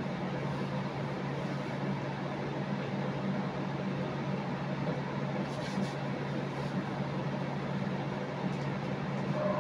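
A small motor running with a steady low hum under an even hiss, with a few faint clicks a little past halfway.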